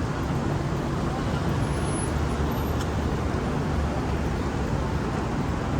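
Steady road traffic noise: a continuous low rumble of passing vehicles with no distinct events.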